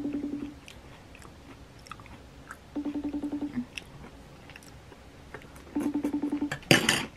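A phone buzzing in short rattling bursts that repeat about every three seconds, as for an incoming call, with a loud knock from handling near the end.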